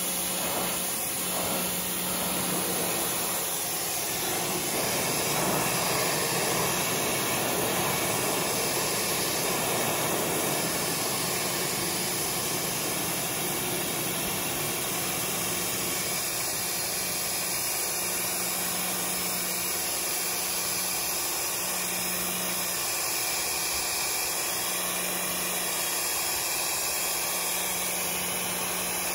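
Pressure washer running steadily, its jet hissing against a canoe hull as it cleans off dirt, with a steady motor hum underneath.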